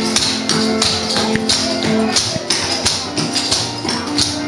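Recorded country music playing over the quick metallic clatter of clogging taps on a wooden floor, with a jingling, tambourine-like ring to each strike.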